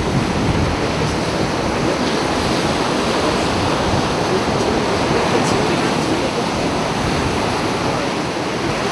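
Ocean surf breaking and washing onto the beach, a steady rushing noise.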